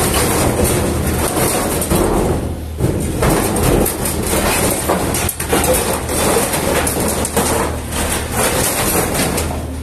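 Yanmar SV18 mini excavator's diesel engine running with a steady low hum, under loud, continuous clattering and scraping of the machine at work. The clatter stops shortly before the end, leaving the engine hum.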